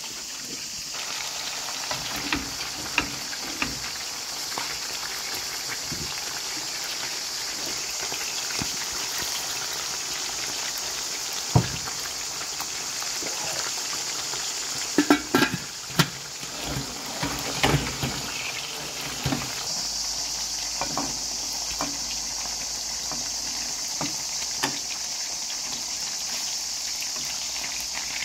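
Chicken pieces frying in oil in a skillet, a steady sizzle, with a few sharp knocks and clinks of cookware, most of them around the middle.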